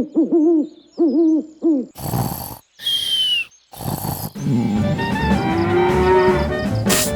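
A quick run of about six short hooting calls, each rising and falling in pitch. Then come a few short bursts of noise with a brief falling whistle among them, and after that steady background music.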